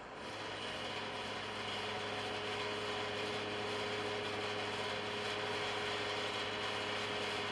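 Vertical knee milling machine taking a light 0.3 mm cut across the end of a metal block: a steady cutting noise over the running spindle's hum, starting a moment in as the work feeds into the cutter.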